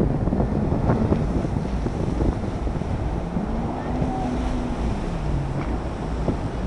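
Wind buffeting the microphone, with a stand-up jet ski's engine audible underneath, its pitch rising and then falling over a couple of seconds past the middle as it is revved through a turn.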